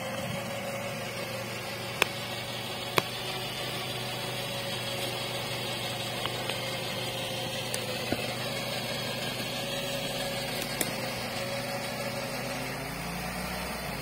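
UAZ off-roader's electric winch whining steadily under load over the running engine, dragging a buried DT-75 crawler track out of the forest soil. A few sharp cracks come through, likely roots snapping, and the low sound shifts near the end.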